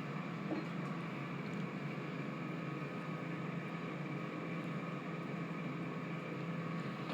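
Steady mechanical fan hum, even and unchanging, with a few faint steady whining tones above it.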